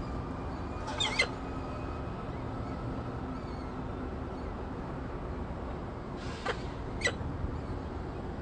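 Short, high squeaky calls from peregrine falcons at the nest during a feeding: two close together about a second in, and two more around six to seven seconds. A steady low rumble of background noise runs under them.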